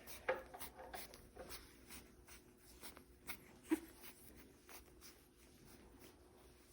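Small nail clippers snipping and handling noises while a three-week-old French bulldog puppy's nails are clipped: soft irregular clicks and scratching, with one short, louder sound just under four seconds in.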